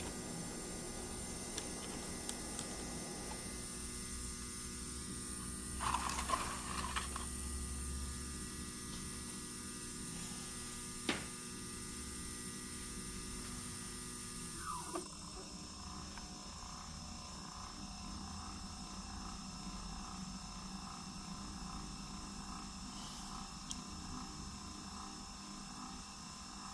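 Steady electrical hum and high-pitched whine from a CNC machine's motors and drive electronics. There is a short rustling noise about six seconds in and a single click about eleven seconds in. A brief falling sweep comes at about fifteen seconds, after which the pitch of the whine changes.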